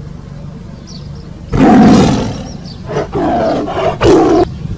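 Tiger roars, one long roar about a second and a half in followed by two shorter ones, the last cut off suddenly.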